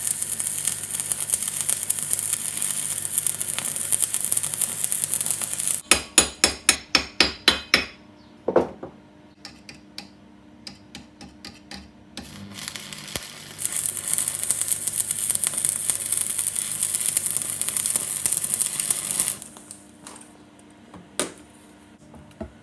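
Stick (arc) welding: the electrode's arc crackles and hisses steadily for about six seconds and stops, followed by a quick run of about fifteen sharp strikes over two seconds. After a lull the arc crackles again for about six seconds, then a single knock.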